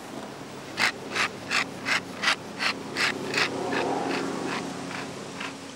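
Hand-twisted wooden pepper mill grinding peppercorns: about a dozen short crunchy rasps, roughly three a second, starting about a second in and fading toward the end.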